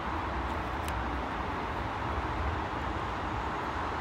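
Class 380 electric multiple unit running past, a steady, even noise of wheels on rail and traction.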